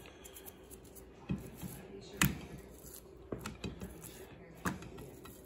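A few sharp knocks and clicks from hands handling things at a kitchen counter, the loudest about two seconds in, over a faint steady hum.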